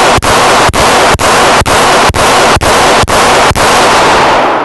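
A 1911 pistol fired in a steady string, about nine shots roughly half a second apart. The reports and the indoor range's echo run together with only brief gaps between shots, and they fade out near the end.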